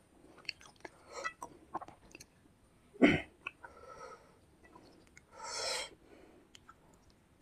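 Close-miked chewing and wet mouth clicks of someone eating fish curry and rice, with a sharp thump about three seconds in and a short breathy noise near six seconds.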